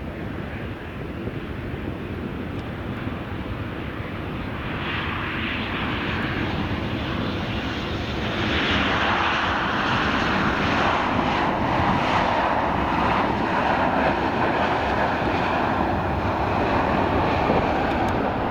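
Jet airliner engines running, a broad roar that grows louder about halfway through and then holds steady.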